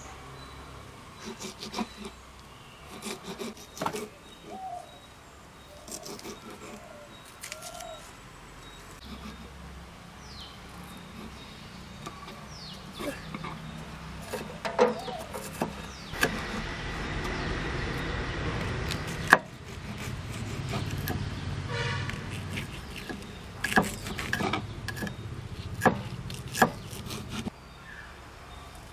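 Kitchen knives chopping shallots and green chillies on wooden cutting boards: irregular sharp knocks of the blades against the wood. Through the middle a steady rushing noise rises, broken off by the loudest knock.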